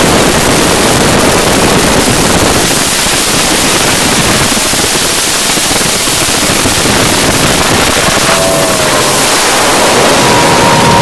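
Loud, even rush of wind and water aboard a speeding motorboat, the wind buffeting the microphone. Near the end a high engine tone comes in.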